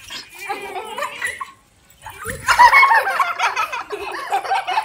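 Young girls shrieking and laughing loudly, breaking out about two seconds in after a short lull, with excited chatter before it.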